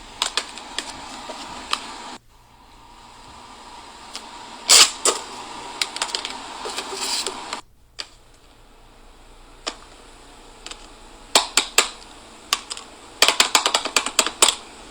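Plastic fidget toys being clicked and snapped by hand: scattered sharp clicks, with a dense run of fast clicks near the end.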